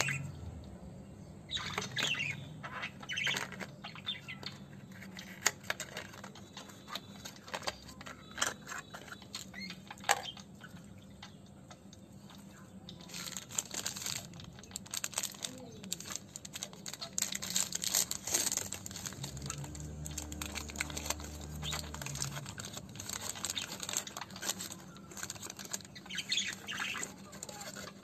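Plastic chocolate-bar wrapper crinkling and rustling in the hands as it is opened: scattered crackles at first, then dense crinkling from about halfway through.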